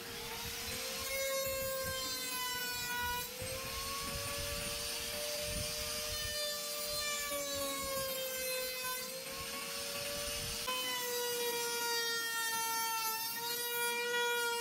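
X-Carve CNC router carving wood: a steady high spindle whine, with a second pitched whine that slowly rises and falls as the machine moves along the cut. About two-thirds of the way through, the low rumble drops away and the whine shifts slightly in pitch.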